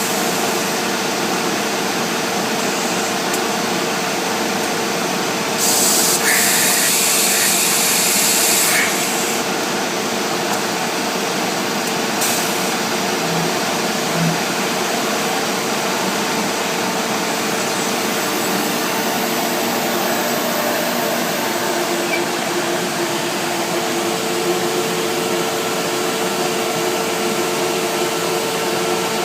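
CNC router cutting MDF panels: a steady mechanical rush with a constant whine. About six seconds in, a louder hiss comes in for about three seconds, then stops.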